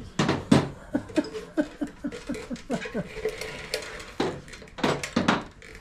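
Metal clinking and knocking as an oily socket and bolts are handled. There are a few sharp clanks near the start and again near the end, with a run of quick light ticks between.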